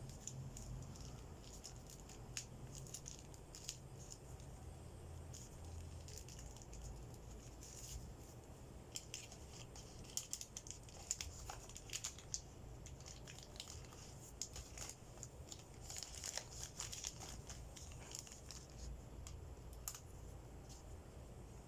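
Faint crinkling and tearing of packaging being handled, with scattered small clicks, busiest around the middle.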